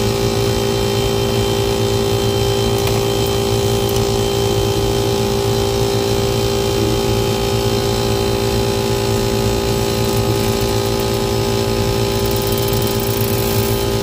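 Rooftop air-conditioning equipment running with a steady mechanical hum that holds several fixed tones, unchanging throughout.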